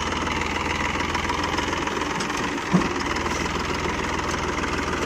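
Massey Ferguson 245 DI tractor's three-cylinder diesel engine running steadily with an even firing rhythm. A brief thump sounds about three seconds in.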